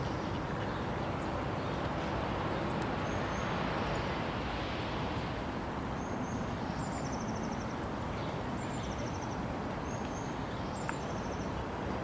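Steady outdoor background rush with a small songbird repeating a short, high-pitched phrase every second or two: a brief note followed by a fast trill.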